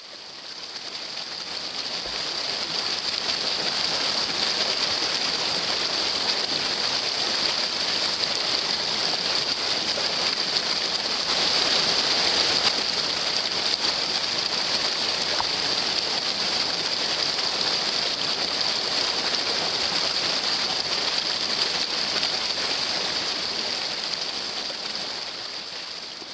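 Creek water rushing over a rock cascade, a steady rush that swells in over the first few seconds and fades near the end.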